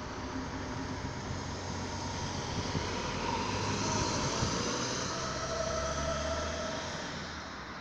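A delivery van driving past close by, its engine and tyre noise swelling to a peak about four seconds in and fading away near the end.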